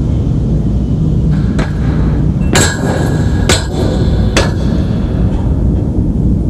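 Three sharp metallic clangs just under a second apart, each ringing briefly, with a fainter knock before them, over a steady low rumble.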